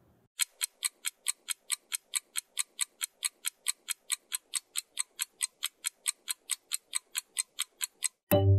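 Clock-style ticking timer sound effect, about five crisp ticks a second, counting out the pause for discussion. Near the end the ticking stops and a loud musical chime sounds.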